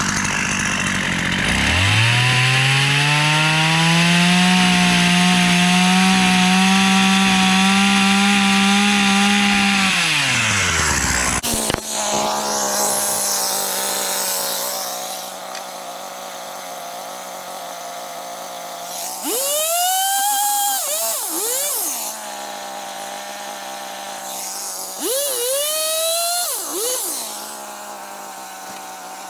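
Gas chainsaw revved up and held at full speed for about eight seconds while it saws through a wooden board, then dropping back to a steady idle. Later it is revved briefly twice.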